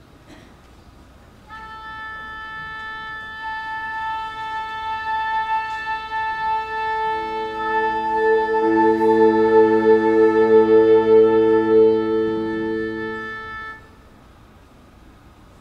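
High school concert band sounding a tuning note. A single wind instrument holds one steady pitch, the rest of the band joins on the same note in lower octaves about halfway through, the sound swells, and all cut off together near the end.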